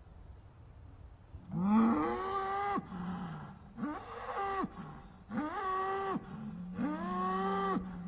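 Cows mooing: four long calls in quick succession, each about a second long, the first starting about a second and a half in.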